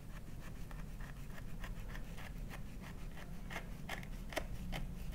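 Kitchen knife sawing through a baked lemon-slice bar with a crumbly shortbread base, down onto a wooden cutting board: a run of short scratchy strokes, about three or four a second, louder toward the end.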